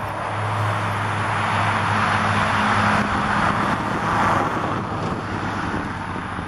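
A road vehicle passing: a low engine hum under a rushing tyre-and-air noise that swells a few seconds in and then eases off.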